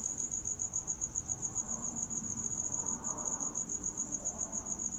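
A cricket chirping: a high, rapid trill of evenly spaced pulses.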